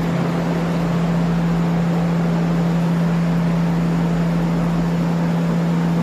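Large cattle-shed ventilation fan running: a steady low hum under a constant rush of air.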